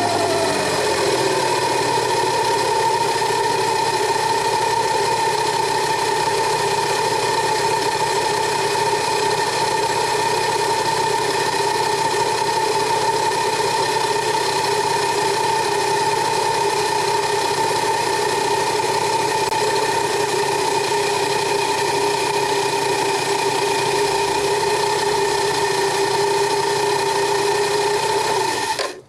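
Scooter engine running with the variator cover removed. The revs drop from a blip in the first second, then it runs steadily with an even whine. It is shut off suddenly near the end. It runs with no rattle: the cover-off test shows nothing loose inside the variator.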